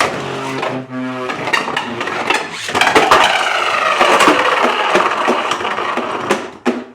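Two 3D-printed Beyblade spinning tops battling in a stadium: a whirring spin at the start, then rapid clattering clashes and scraping of plastic on plastic that die away shortly before the end.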